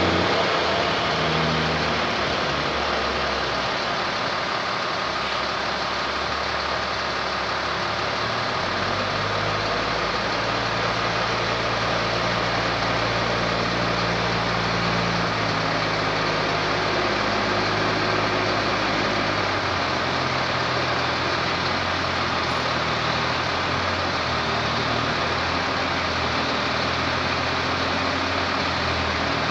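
A heavy truck's diesel engine runs, its low pitch shifting a couple of times as it manoeuvres, over a steady hiss.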